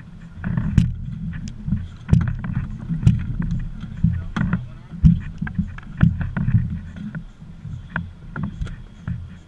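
Water slapping against the hull of a small fishing boat as it rocks, with irregular knocks and clicks from gear and feet on the deck.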